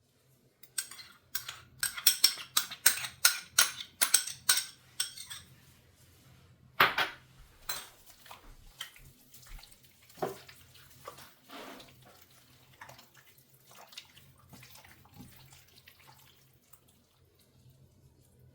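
Kitchen clatter of dishes and utensils being handled: a quick run of light clinks and knocks, one louder knock about seven seconds in, then scattered quieter handling sounds.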